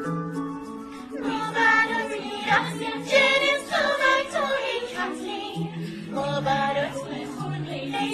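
A birthday song sung in Persian by female voices together, over a light instrumental backing. The voices come in about a second in, after a few held instrumental notes.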